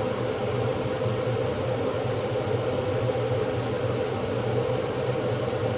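Steady kitchen hum with a hiss underneath, unchanging throughout, of the kind a running kitchen fan or lit stove burner gives.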